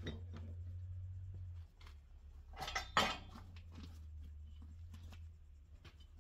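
Metal clinks and knocks as a small steel wheel rim with its tire is worked up and lifted off the tire changer's steel post, the loudest knock about three seconds in. A low hum underneath eases off about a second and a half in.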